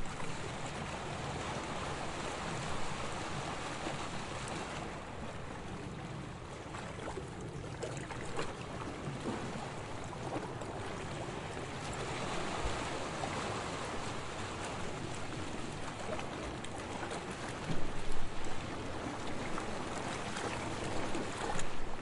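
Calm sea waves lapping and washing in a steady, gentle wash of water, with a couple of louder surges near the end.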